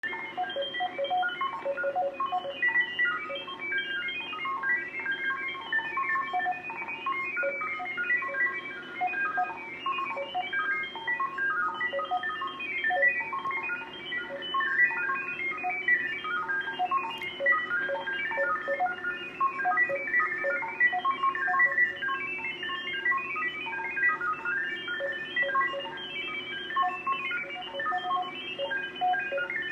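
Unidentified digital data signal received on the HF shortwave bands, heard through a radio receiver: a continuous rapid stream of short beeps hopping among many different pitches, over a low steady hum.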